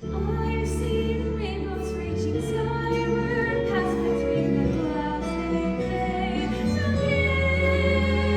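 A stage musical number starts abruptly: sustained accompaniment chords over a held bass, with a woman singing.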